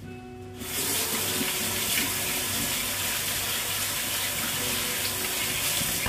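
Water running steadily from a kitchen tap, turned on about a second in and shut off at the end.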